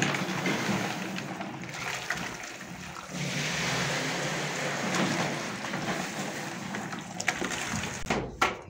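Gypsum plaster powder being sprinkled by hand into water in a wooden mixing box, a steady soft rushing hiss. A few sharp knocks near the end.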